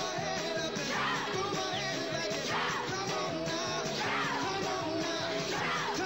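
Background music: a song with a singing voice and a falling swoop about every second and a half.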